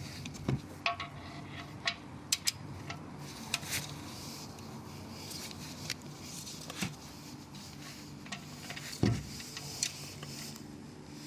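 Scattered light metallic clicks and clinks from a torque wrench and socket being worked on an oil drain plug being tightened. There is a louder knock about nine seconds in, over a steady low hum.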